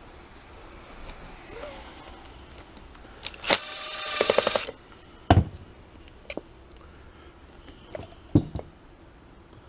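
Hand disassembly of a Mikuni carburetor's float bowl: small parts clicking and knocking on the bench, with a short rattling rasp about three and a half seconds in, the loudest sound, and a few sharp knocks after it.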